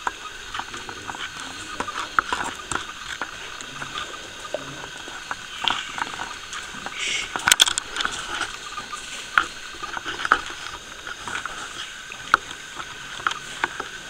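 Irregular knocks, taps and crackles with no clear rhythm: an unexplained banging noise. The sharpest bangs come in a quick cluster about seven and a half seconds in, with another single sharp knock near twelve seconds.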